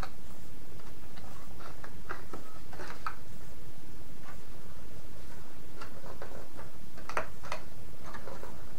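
Light, irregular clicks and rustles of cardstock as a small paper box is squeezed and its taped sides pressed together, over a steady low hum.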